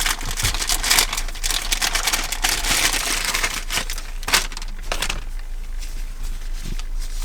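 Dense crinkling and crackling of plastic and wiring being handled, with many sharp clicks; it thins out about five seconds in.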